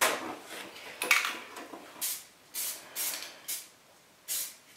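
Aerosol spray paint can spraying in a series of short hissing bursts, about seven in all, the first the longest and loudest.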